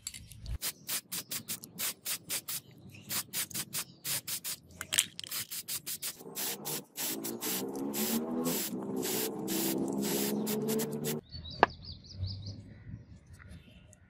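Aerosol can of clear paint sprayed in quick short bursts, then held in a longer spray for several seconds, with a wavering hum under it. One sharp tick near the end.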